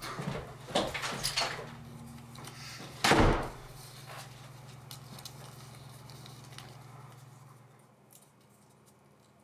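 A few soft knocks and rustles, then one heavy thud about three seconds in, over a steady low hum that fades away near the end.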